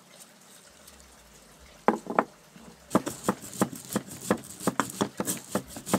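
Stone pestle pounding spice seeds in a stone mortar: two knocks about two seconds in, then steady pounding at about three strokes a second.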